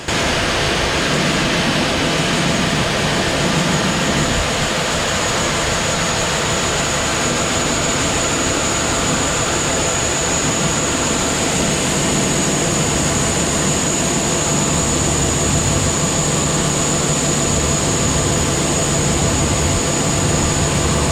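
Grain cart unloading corn into a semi trailer: the tractor's engine runs steadily under the Brent 1195 cart's unloading auger, a constant rushing noise with a steady high whine.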